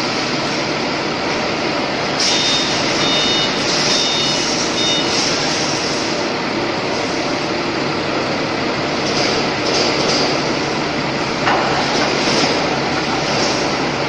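Steady, loud running noise of a forklift feeding charge into an open melting furnace, with a short series of high beeps about two to five seconds in and a single knock late on.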